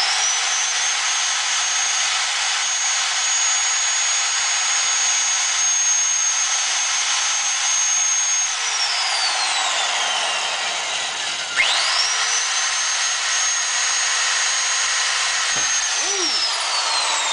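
Electric power drill running at full speed, its bit boring through the metal cable bracket to clear old cable wire still stuck inside. The motor whine winds down about eight and a half seconds in, spins back up about three seconds later, and winds down again near the end.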